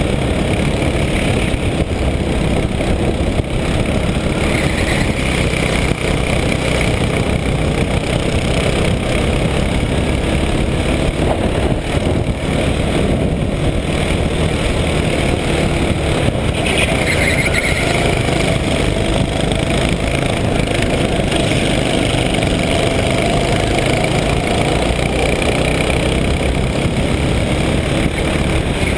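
Go-kart engine running hard from the driver's seat, its pitch rising and falling as the kart accelerates and slows through the corners.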